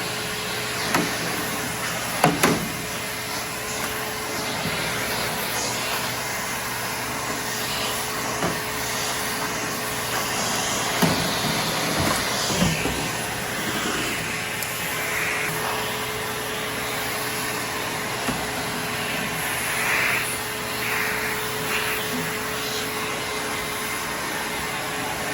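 Vacuum cleaner running steadily, sucking up leftover screen and spline residue from a window screen frame, with a few short knocks as the nozzle hits the frame.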